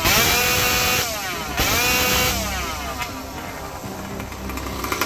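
Two-stroke chainsaw revved to full throttle twice, each rev held for about a second, then dropping back to a lower, rougher running.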